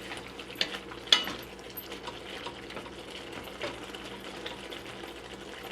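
Ground pork simmering in a little salted water in a pan, a steady low bubbling, with a steady low hum under it and a couple of light clicks about half a second and a second in.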